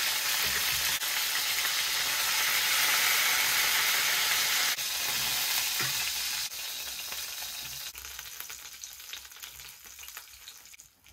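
Marinated chicken pieces sizzling in hot oil in a metal wok, with a spatula turning and lifting them. The sizzle is loud and steady for about five seconds, then drops in steps and dies away over the last few seconds.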